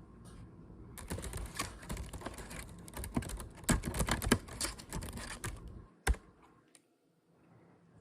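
Fast typing on a computer keyboard, a rapid run of key clicks for about five seconds, ending with one sharper, louder click.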